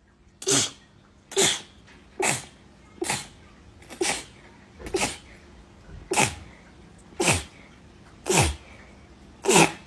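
A person sneezing in a rapid-fire run, ten sneezes about a second apart. Each is a sharp burst that drops in pitch, and the last few are the loudest.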